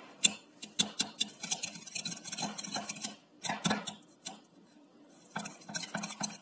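Wire balloon whisk beating thick hung curd (strained yogurt) smooth in a bowl: quick clicks and scrapes of the wires against the bowl, stopping for about a second after four seconds, then starting again.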